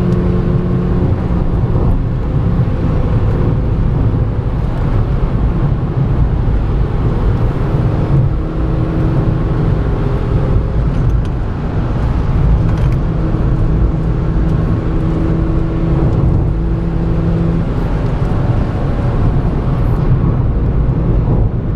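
Ford Fiesta Mk6 1.2-litre four-cylinder petrol engine running steadily while driving, mixed with road and tyre noise. The engine note shifts in pitch a few times.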